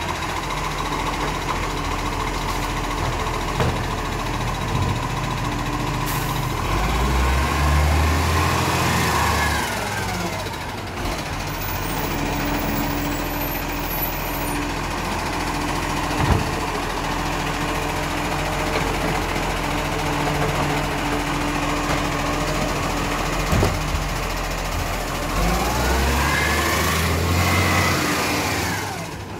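Diesel engine of an Iveco Acco side-loader garbage truck running while its hydraulic arm lifts and empties organics bins. The engine revs up twice, about 7 seconds in and again near the end, each time with a whine that rises and falls. There is a single knock about 16 seconds in.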